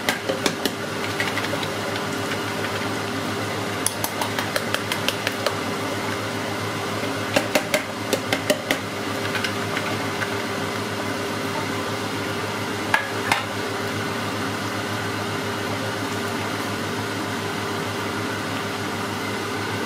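Steady kitchen fan hum with a held drone, with runs of light clinks of kitchenware on a metal pot about four and seven seconds in and once more near thirteen seconds.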